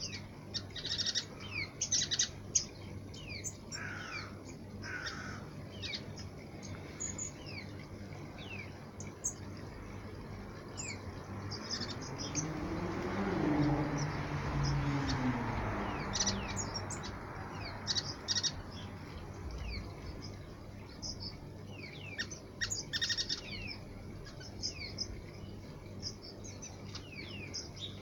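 Waxbills giving many short, high chirps. Midway a passing engine swells and fades over a few seconds, its pitch falling as it goes by.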